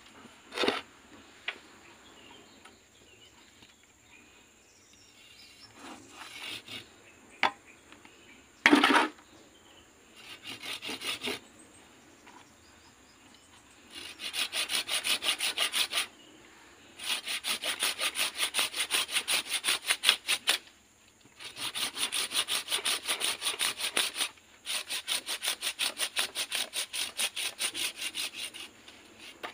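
Curved hand pruning saw cutting through a green anting putri (Wrightia religiosa) stem. There are a few sharp knocks and short strokes at first, then four bouts of quick, even back-and-forth strokes with short pauses between them.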